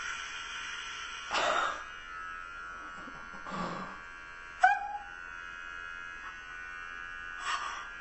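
Electric hair clippers buzzing steadily as they shave through long hair. A few short breathy sounds break in, and there is a brief sharp cry falling in pitch about halfway through.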